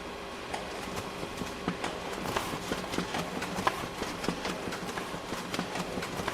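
Photocopier running with a steady hum; about half a second in, its mechanism starts clicking and clacking irregularly, the clicks coming thicker as it goes on.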